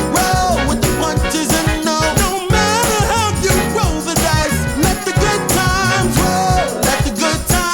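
Background pop music with a steady beat, rattle-like percussion and a melodic line.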